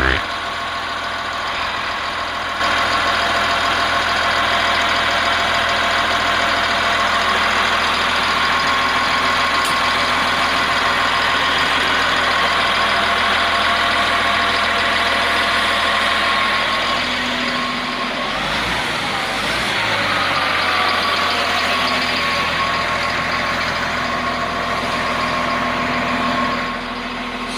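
Caterpillar 950H wheel loader's diesel engine running steadily. It gets louder about two and a half seconds in, briefly dips and shifts in pitch about two-thirds of the way through, and drops back just before the end.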